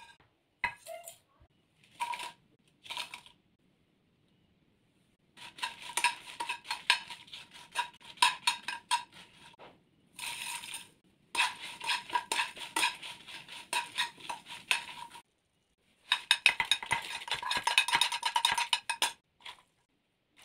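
A metal spoon or spatula stirring whole spices, dried red chillies and coriander seeds, around a metal pan: rapid clinks, rattles and scrapes in several runs of a few seconds each, with short pauses between them.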